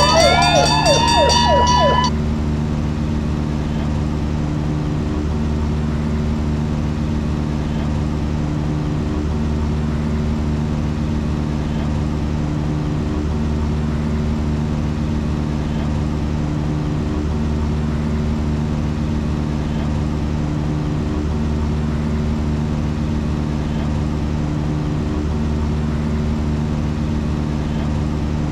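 Steady drone of a Cessna 172's four-cylinder piston engine and propeller in flight, an even low hum with several steady tones. A burst of rising, siren-like sweeps sounds over it and cuts off about two seconds in.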